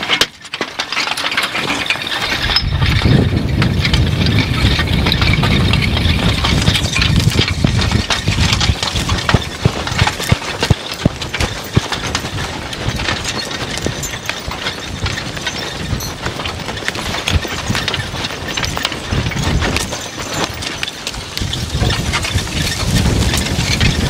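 Steel spring-tooth harrow dragging through plowed soil behind a horse-drawn forecart, its teeth and frame rattling and scraping with many small clicks and knocks over a low rumble. It gets louder about two seconds in.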